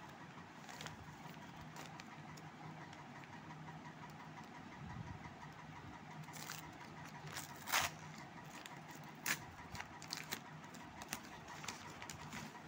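Brown paper courier envelope crinkling and tearing as it is pulled open by hand, in short irregular crackles, the loudest a little past halfway and again about a second and a half later, over a steady low hum.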